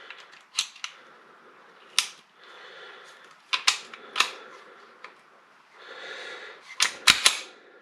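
Norinco NP17 pistol being worked by hand: sharp metallic clicks of its hammer and action, about ten spread out, with a quick group of three near the end, over light handling noise.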